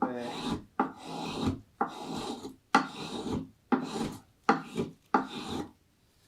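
Repeated hand-tool strokes shaving and scraping green black walnut, about one stroke a second, closer together near the end and stopping shortly before the end.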